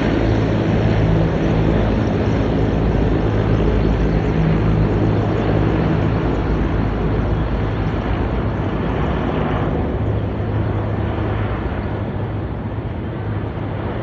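Helicopter flying overhead: a steady engine and rotor sound that slowly grows fainter as it moves away.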